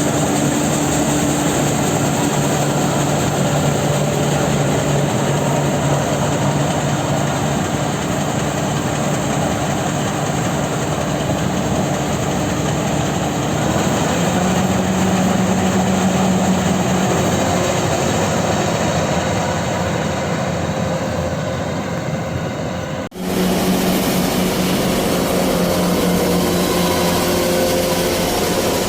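Kubota DC-93 combine harvester's diesel engine running steadily while harvesting rice. The engine note rises a little about halfway through; near the end the sound cuts out for an instant and resumes.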